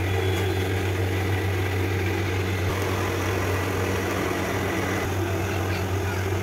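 A steady low mechanical hum from a motor or engine running continuously, with a faint hiss above it.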